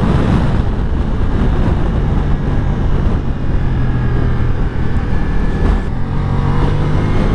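Ducati Multistrada V4 Pikes Peak's V4 engine running at a steady cruise in third gear, heard onboard with wind rushing over the microphone.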